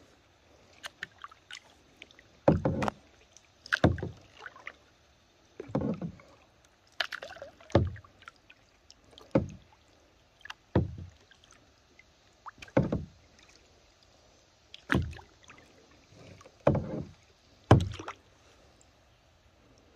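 Kayak paddle strokes: the blade dipping and pulling through the lake water about ten times, each stroke a short splash, in a steady rhythm roughly every one and a half seconds.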